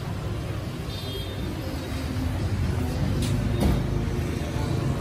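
Low, steady rumble of road-vehicle engines, with two short knocks a little past three seconds in.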